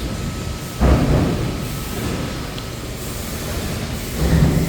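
Industrial sheet-metal machinery running, with a loud mechanical thud about a second in that fades away. Near the end a second surge of rumble carries a steady low hum.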